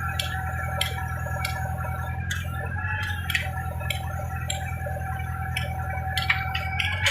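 A heavy rock-drilling machine and its air compressor running steadily, a low hum with a higher whine over it, and irregular sharp metallic clicks and clinks throughout.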